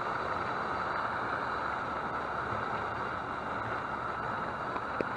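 Water boiling and sizzling around a battery-heated wire, a steady hiss of bubbling with a couple of faint clicks near the end.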